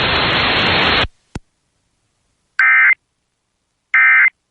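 Steady radio static hiss that cuts off suddenly about a second in, then a click and two short digital data bursts about a second apart: the Emergency Alert System SAME end-of-message code that closes the warning.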